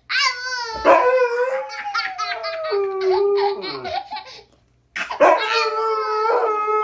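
A husky howling and yowling back and forth with a toddler's laughter, the toddler's laugh coming in quick bursts; after a brief pause about four and a half seconds in, the husky howls one long, steady note.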